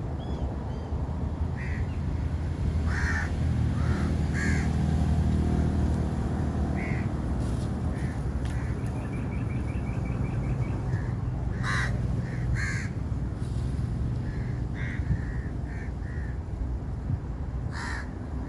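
Crows cawing: short, separate calls every second or few seconds over a steady low rumble.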